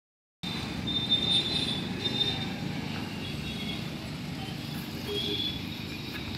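Steady low rumble of outdoor background noise, with brief high chirps now and then.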